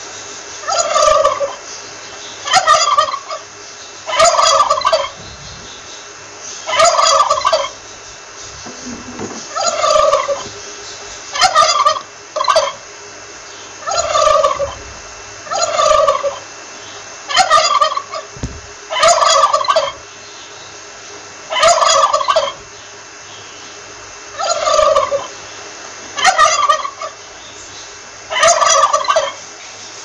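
Male turkey gobbling again and again, one short rattling gobble every second or two.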